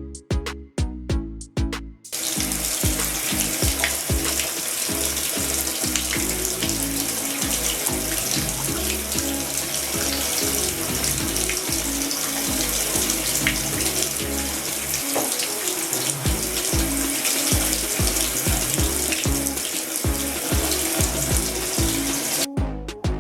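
Shower water spraying in a steady rush, starting suddenly about two seconds in and cutting off just before the end. Background music with a beat plays throughout, alone at the start and end.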